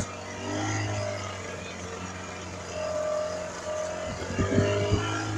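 Motorboat engine running steadily, a low even drone.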